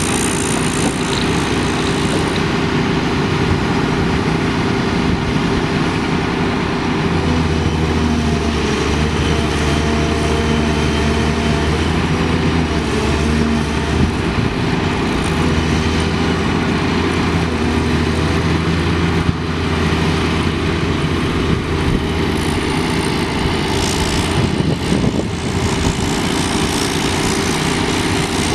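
Komatsu PC200LC-7 excavator's six-cylinder turbo diesel engine running steadily. About seven seconds in, a deeper low drone comes in and holds for most of the rest.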